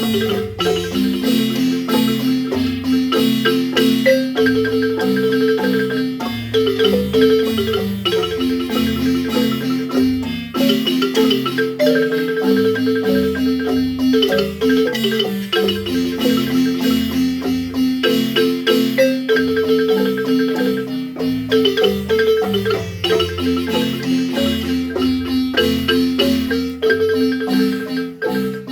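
Marimba music: a melody played in rapid repeated-note rolls over a moving bass line.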